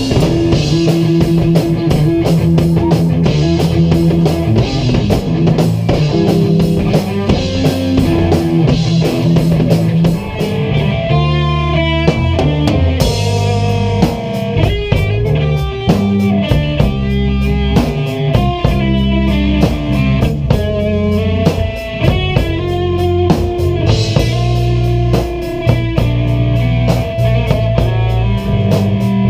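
A small rock band jamming live: drum kit and electric guitars playing together with a steady beat.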